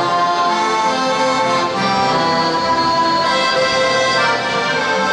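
A live band playing traditional-style music: held chords under a melody whose notes change every half second or so.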